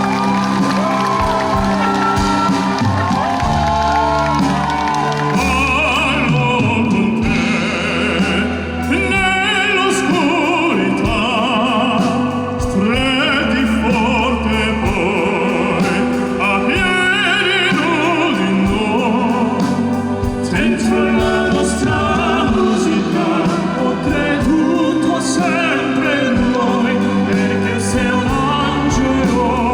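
Live orchestral music with operatic singing; a voice with strong vibrato comes in prominently about six seconds in.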